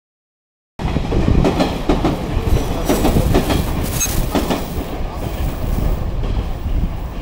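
A train running through a station, its wheels clattering over rail joints and points with a brief high wheel squeal around three to four seconds. The sound cuts in abruptly about a second in.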